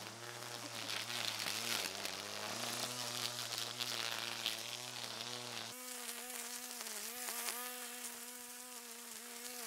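String trimmer running and cutting through weeds: a steady buzzing whine whose pitch dips and recovers as the line bites into the growth. About six seconds in the low part of the hum drops away, leaving a thinner, higher whine.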